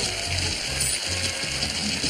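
Sitcom closing theme music: an instrumental tune over a bouncing bass line.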